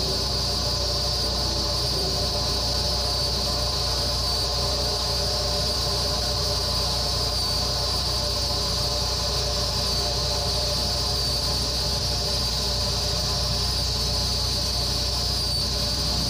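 Steady industrial ambient drone from a film soundtrack: a low hum under faint humming tones, with a constant high hiss on top, unchanging throughout.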